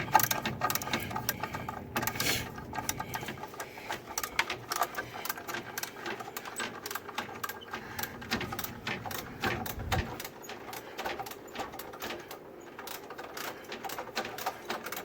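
Hand ratchet wrench clicking in fast runs of clicks as a bolt is turned.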